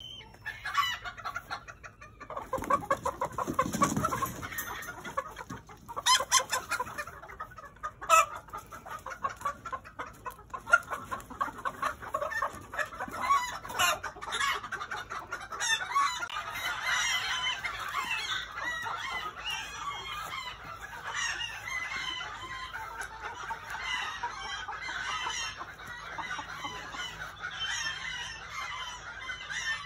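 A flock of chickens keeps up continuous clucking and cackling danger calls, the warning they give when a predator is about. A few sharp clicks stand out in the first third.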